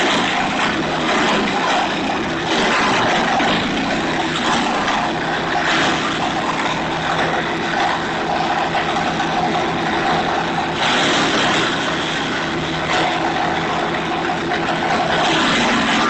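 Small engine-driven garden wood chipper running steadily, with loud rushes of shredding noise several times as conifer branches are fed in and chipped.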